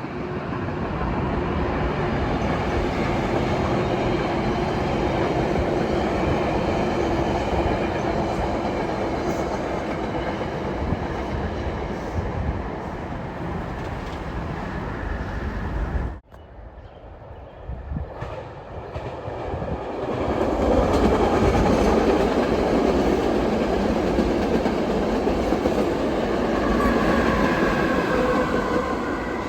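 Train passing on the rails, a steady loud rolling rumble with clickety-clack of the wheels. The sound cuts off abruptly about halfway through, then train noise builds again and stays loud.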